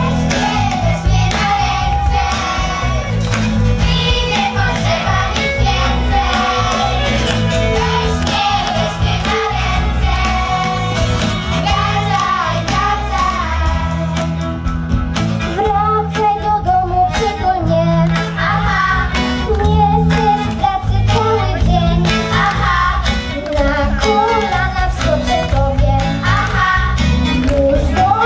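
A children's choir singing a song with instrumental band accompaniment.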